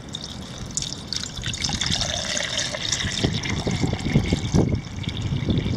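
Water poured from a stainless steel container into a stainless steel billy can holding a coffee-filter pouch, splashing and trickling as the can fills; the pour starts about a second in. Wind buffets the microphone underneath.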